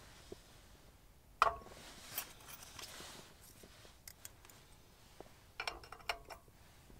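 Small metal camping-stove parts, a brass Trangia alcohol burner and a folding pot stand, being handled and set on a steel stove top: one sharp ringing clink about a second and a half in, and a quick cluster of light metallic clinks near the end.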